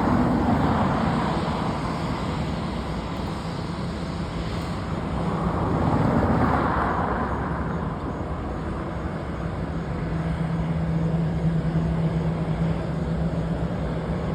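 Airbus A319's jet engines running after landing, a steady rushing noise that swells twice, with a low steady hum in the later part.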